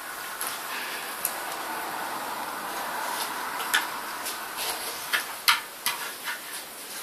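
Staffordshire bull terrier snuffling at and chewing a dried pig's ear: a soft rushing noise, then a run of sharp crunching clicks in the second half.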